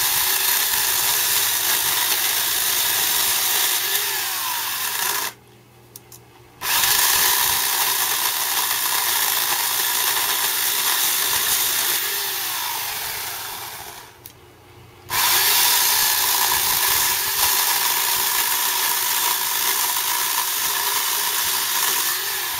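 Harbor Freight Portland 14-inch corded electric chainsaw running and cutting through a dead peach tree log, its motor pitch dipping under load. It stops briefly twice, about five and fourteen seconds in, then starts up again.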